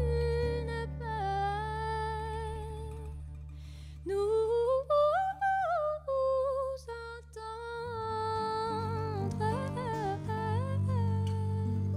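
Slow music: a woman hums a wordless melody with vibrato and sliding pitches over a bowed double bass holding long low notes, the bass moving to a new note about eight seconds in.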